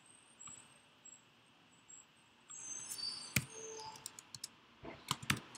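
Computer keyboard and mouse clicks. One sharp click comes a little past halfway, then a quick run of key taps near the end as a short command is typed.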